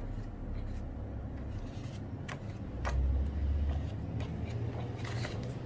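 Low rumble of a motor vehicle outside, swelling about halfway through, with a few light clicks over it.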